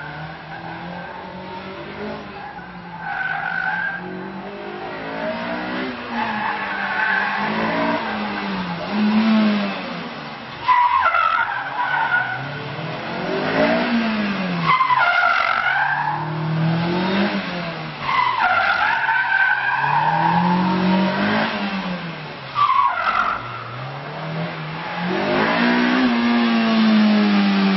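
Honda S2000's four-cylinder engine revving up and dropping back again and again, with repeated bursts of tyre squeal as the car is thrown hard through tight cone turns. It grows louder near the end as the car comes closer.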